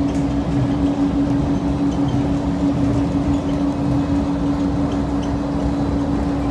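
Steady drone of airport ramp machinery, a constant hum over a low rumble that does not change.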